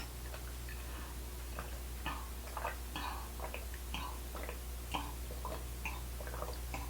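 A person chewing sushi close to the microphone: soft, irregular wet mouth clicks and smacks.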